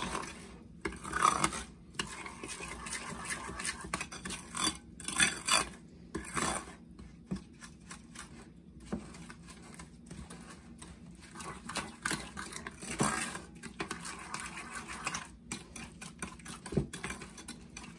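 A utensil scraping and knocking against a ceramic bowl as butter is mashed and stirred into brown sugar, in uneven strokes with a few louder clacks.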